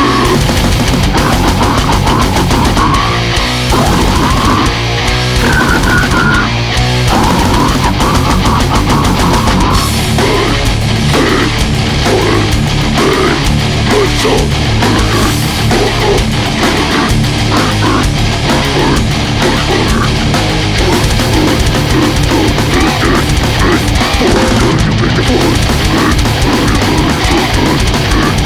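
Death metal recording playing loud and dense: heavily distorted guitars over bass and drums.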